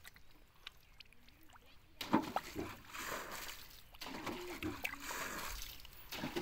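Bare hands squelching and splashing through wet mud and shallow water. It is faint at first, with a few soft clicks, then louder and more irregular from about two seconds in.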